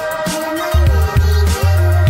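Sped-up electronic track: a synth line that slides down and back up in pitch over deep, blocky bass notes, with sharp percussion hits.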